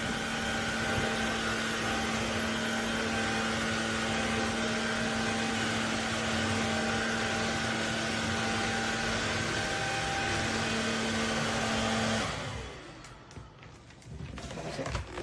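CHEBIO cordless stick vacuum's motor running at a steady speed, with a constant whine over a loud rush of air, then switched off about twelve seconds in, the sound dying away quickly.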